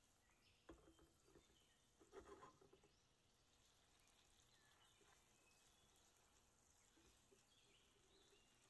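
Near silence, broken by a few faint knocks and scrapes about a second in and again around two seconds in, fitting a frying pan being shaken and stirred on the hob.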